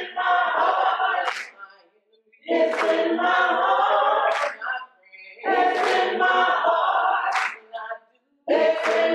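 Small gospel ensemble of mixed voices singing a cappella: four short phrases of a repeated refrain, each about two seconds long, with brief breaks between them.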